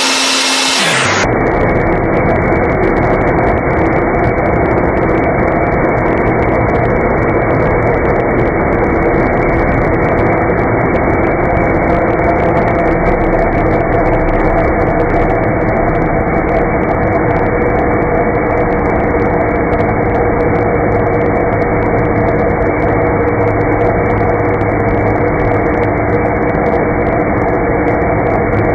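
Harden magnetic drill's electric motor running steadily, a continuous hum with a few fixed tones that do not change in pitch.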